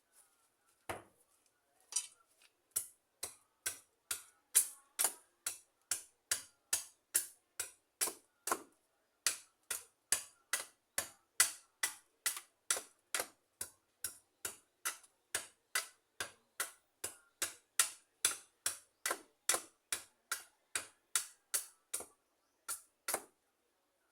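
Hammer blows in a steady rhythm, a little over two sharp knocks a second, kept up for about twenty seconds.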